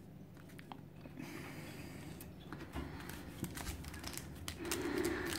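Faint handling noises of trading cards and a booster pack: a stack of Pokémon cards is squared up and set down with small taps, then the shiny wrapper of a booster pack is picked up and handled with a light rustle that grows toward the end.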